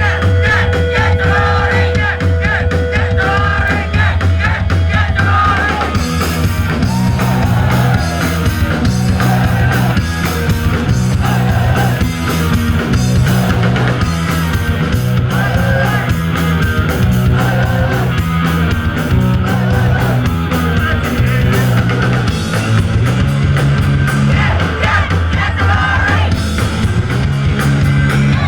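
Live punk rock band playing loud, with a sustained guitar chord for the first few seconds, then the full band kicking in about six seconds in, with driving bass and drums and shouted vocals.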